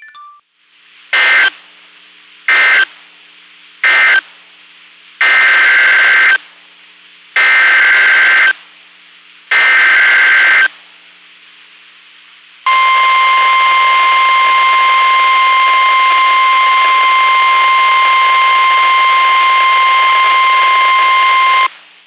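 NOAA Weather Radio emergency alert data and alarm. First come three short end-of-message data bursts, then three longer buzzing SAME header bursts that announce a new warning. From about 13 seconds in, the steady 1050 Hz warning alarm tone sounds for about nine seconds.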